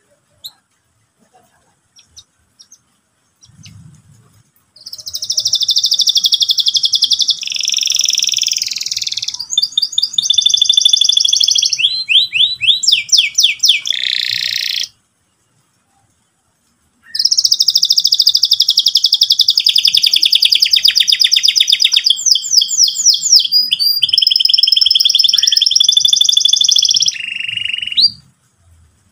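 Domestic canary singing long, loud song phrases of rapid trills and rolls, starting about five seconds in. The song stops dead for about two seconds midway, then runs on again until near the end.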